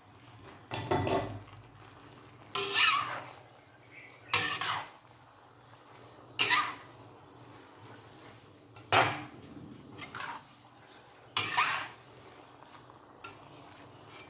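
Metal spatula scraping and clanking against a large aluminium wok as noodles and vegetables are tossed, in separate strokes roughly every two seconds.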